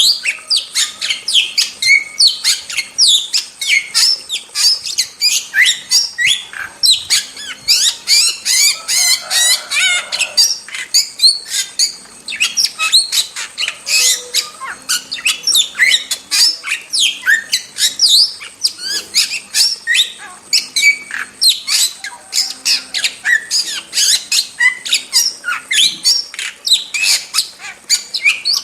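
Starling (jalak) singing vigorously: an unbroken stream of sharp chattering calls and squawks, many of them short falling notes, with a rapid run of repeated notes about nine seconds in.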